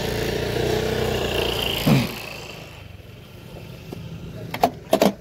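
A motor vehicle's engine running close by, loud with a brief swell about two seconds in, then fading away. Near the end, three sharp knocks.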